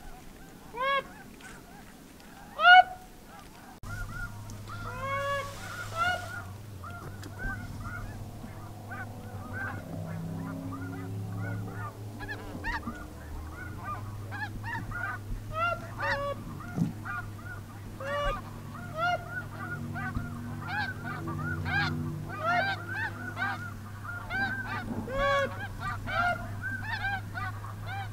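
A flock of snow geese calling: a few loud single honks at first, building from about ten seconds in to a dense, continuous chatter of many birds calling over one another, with a steady low hum underneath.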